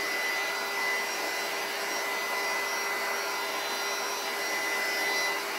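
Handheld electric heat gun running steadily, its fan blowing with a constant high whine as it heats a shrink-wrap bag.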